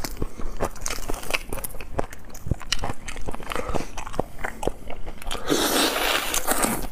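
Fingers peeling the shell off a cooked whole shrimp, a run of quick crackling clicks, then a louder, longer mouth noise about five and a half seconds in as the peeled shrimp is bitten.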